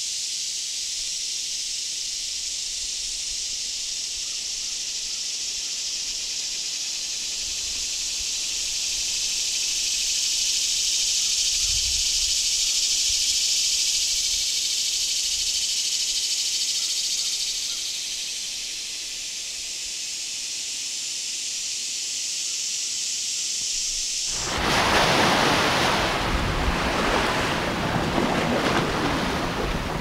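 A steady high-pitched hiss with almost nothing underneath it. About 24 seconds in it cuts suddenly to louder wind and surf rushing across the whole range.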